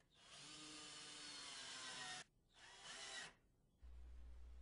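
Power drill driving screws to fasten mounting brackets, running faintly for about two seconds and then again in a short burst.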